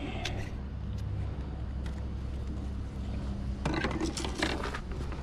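Steady low hum, with light clicks and a stretch of scraping and rustling about three and a half seconds in, as test equipment and leads are handled.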